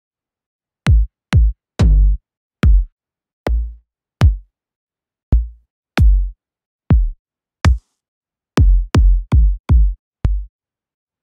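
Electronic techno kick drum one-shot samples previewed one after another in a sample browser. There are about fifteen separate kicks at uneven intervals, each a short click over a deep boom that dies away within half a second. They vary in length and tone from sample to sample.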